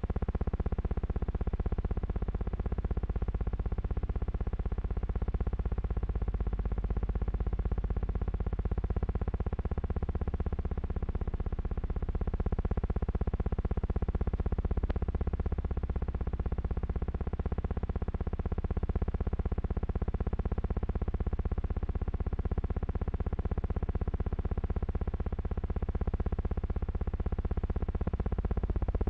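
Steady, unchanging low hum with a faint buzz over it, like noise on an old film soundtrack, and a single faint click about halfway through.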